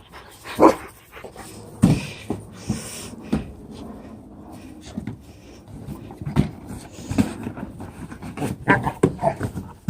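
A Rottweiler panting and moving about, with scattered short, irregular sounds.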